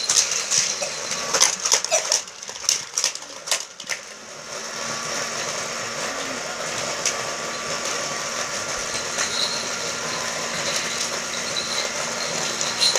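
Motor of a toy car race track set whirring steadily, starting about four seconds in, after a run of sharp plastic clicks and rattles.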